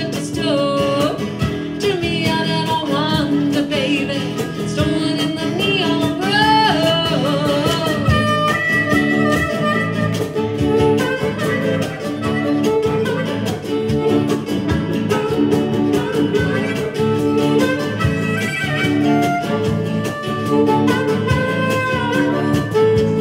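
Live acoustic band playing an instrumental break: a harmonica solo with bending notes over strummed acoustic guitars.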